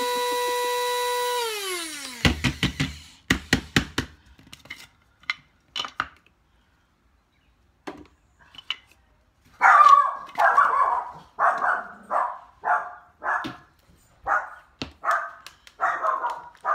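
A steady electronic tone slides down in pitch and dies away, followed by a few clicks. From about ten seconds in, a dog barks repeatedly, about two barks a second, the first ones loudest.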